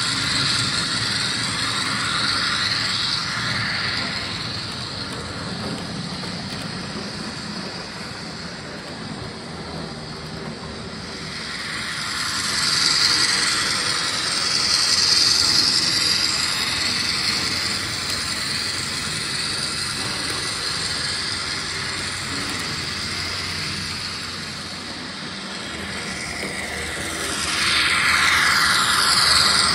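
N-scale model train running along the layout's track, its wheels on the rails and its small locomotive motor making a steady running noise. It gets louder as the train passes close, about twelve seconds in and again near the end.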